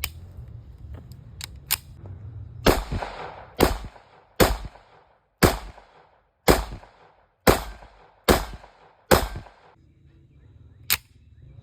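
Smith & Wesson M&P 5.7 pistol, chambered in 5.7×28mm, firing eight shots in slow, steady succession about a second apart, each crack followed by a short echo. A few faint clicks come before the string, and one more sharp crack comes near the end.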